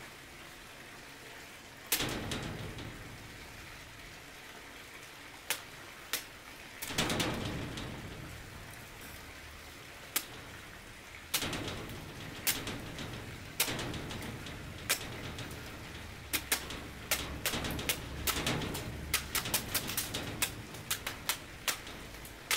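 Damascus push dagger slashing and stabbing a hanging watermelon: sharp, wet cuts into the rind. They start a couple of seconds in as single strikes a second or more apart, then come in rapid flurries for the last several seconds.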